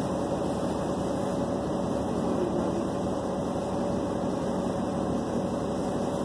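Steady drone inside a city bus: the engine running and the air conditioning blowing, with a faint steady hum over an even rumble.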